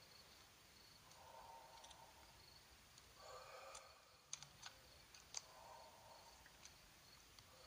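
Near silence, with a few faint sharp clicks, the clearest between about four and five and a half seconds in.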